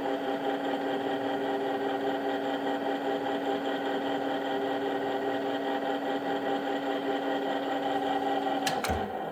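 Machine spindle motor running steadily while it drives a tap through a bolt hole in a 427 FE cylinder head, cutting threads for a thread insert. A couple of sharp clicks come near the end as the machine is switched off and starts to wind down.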